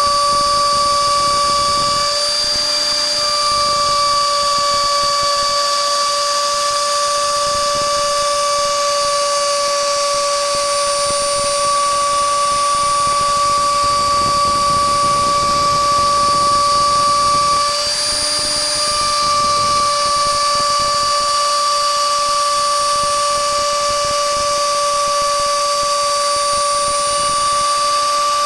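CNC router spindle running with a 6 mm end mill cutting wood: a steady high whine over a light cutting hiss, wavering briefly twice.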